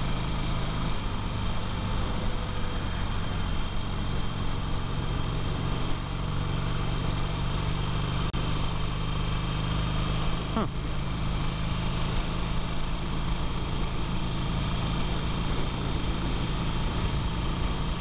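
Harley-Davidson Sportster 883's air-cooled V-twin engine running steadily while the motorcycle cruises at road speed.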